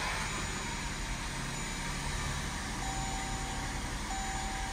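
Jeep Grand Cherokee's 3.6-litre V6 idling steadily, a second or so after a cold start.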